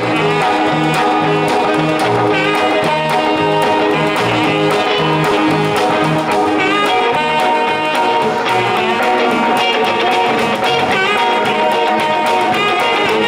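A live band playing an instrumental passage: electric guitars, bass and drums, with a low bass figure repeating about twice a second through the first half.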